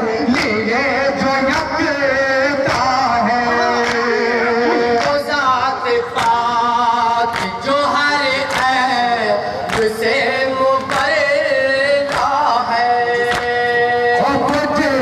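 Men chanting a noha (Shia lament) into microphones, a lead voice with long held and gliding sung lines over a steady sharp beat that keeps time.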